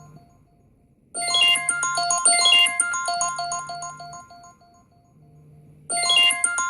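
An iPhone ringtone playing: a chiming electronic melody of short repeated notes with quick tinkling runs. After a short gap it starts about a second in, dies away, and starts over near the end as the ringtone loops.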